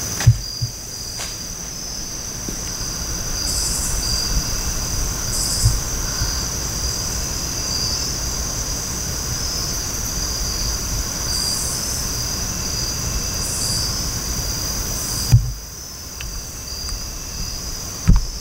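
Insect chorus trilling steadily in one high continuous tone, over a low rumble of wind on the microphone. A couple of sharp knocks come near the start and about fifteen seconds in.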